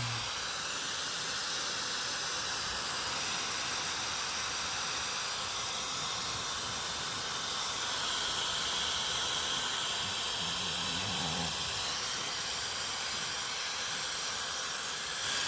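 Dyson Supersonic HD03 hair dryer blowing steadily: an even rush of air, whose tone shifts slightly about halfway through.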